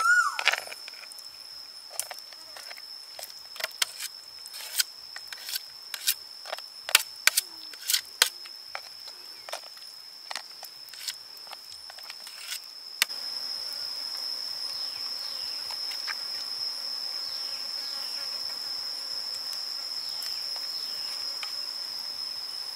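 Insects trilling steadily on one high note, with a metal spoon clicking and scraping against a metal tray as it picks meat from a cooked fish head. About 13 s in the clicks stop, and the insect trill and a steady background hiss become louder.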